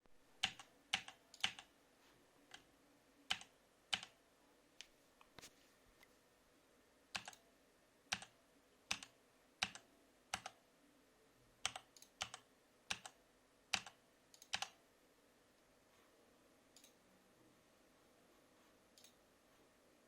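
Keys on a Monster Pusat K3 Pro mechanical keyboard with red linear switches pressed and released one at a time, about twenty separate clacks over the first fifteen seconds, then two faint ones. The switches carry spring noise, which the owner counts as a flaw.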